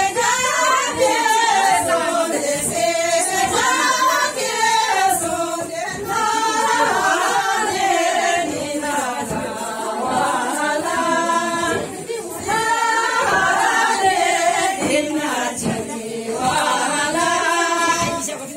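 A group of women singing a folk song together in unison, without instruments, in phrases with short breaths between them.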